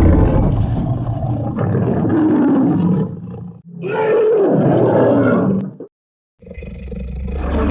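Animated-dinosaur roar sound effects: a long rough growling roar, then a second roar after a brief dip. After a half-second of silence, a third roar swells up near the end.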